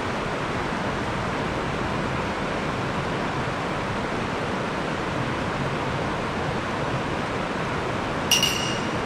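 Steady rushing of flowing river water, with one brief high-pitched chirp near the end.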